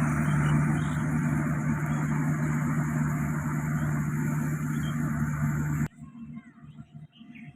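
Yanmar Y700 combine harvester running steadily, a loud machine hum with a strong low tone under a wide hiss of working machinery. It cuts off abruptly near the end, leaving only faint background sound.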